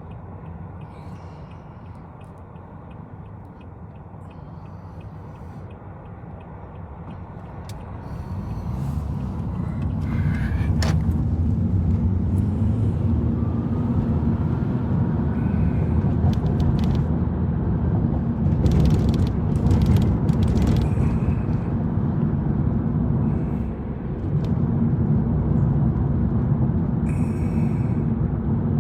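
A car in motion: a low rumble of engine and road noise that swells about a third of the way through as the car picks up speed, then holds steady.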